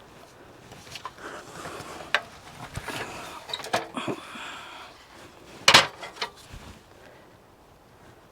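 A run of sharp knocks and clatters with rustling in between, like things being handled and set down. The loudest knock comes about two-thirds of the way through.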